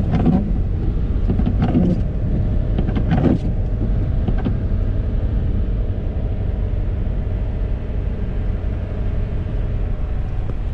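Steady low rumble of a pickup truck on the road, heard from inside the cab. A few short, louder sounds come in the first few seconds.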